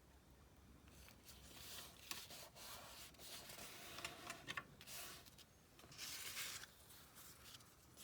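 Faint rustling and rubbing of paper being handled and worked by hand, in several short stretches with a few sharp ticks.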